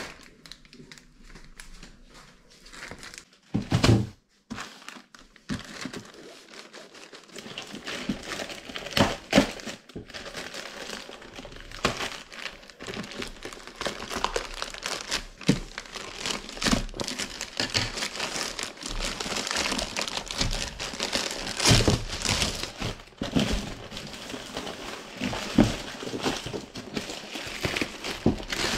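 Plastic mailer bag being handled and cut open with scissors, crinkling and rustling, then crinkly foil wrapping crackling as a boxed item is pulled out of it. A few sharp knocks break through, the loudest about four seconds in.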